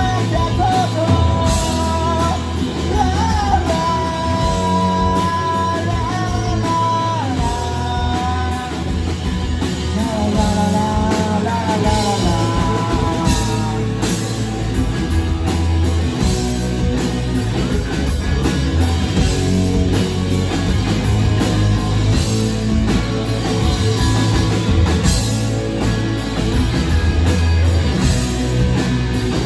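Live rock band playing through a club PA, recorded from the audience: distorted electric guitars, bass and drum kit. A man sings over the band for about the first half, then the band plays on without vocals.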